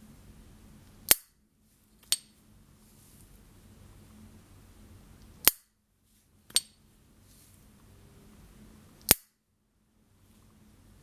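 S.T. Dupont Ligne 1 gas lighter's metal lid snapping open and shut: five sharp metallic clicks in pairs about a second apart, the second of each pair ringing briefly with the lighter's high ping.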